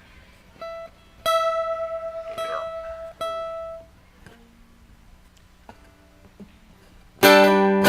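Guitar: a few single notes plucked and left ringing, then a few quiet seconds, then a loud strummed chord near the end.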